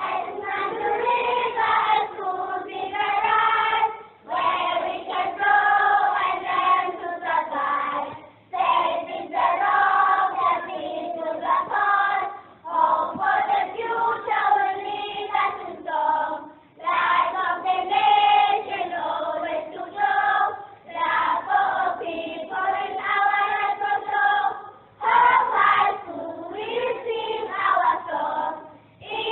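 A choir of voices singing, in phrases about four seconds long with short breaks between them, with no accompaniment to be seen.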